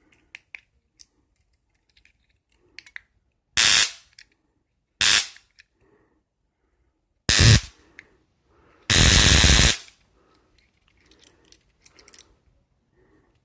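Miniature flashlight stun gun crackling as it arcs across its electrodes: three short zaps a second or two apart, then a longer one of almost a second.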